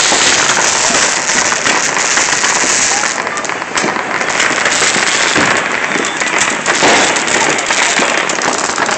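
Consumer fireworks crackling continuously, with many small pops and cracks in quick succession and a short lull about three seconds in.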